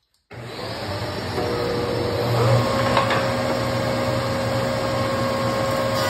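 Oliver 4705 5 hp shaper and a shop dust collector starting up and running at 7,000 RPM: a sudden start into a loud, steady rushing whir, with a hum that settles in after a second or two.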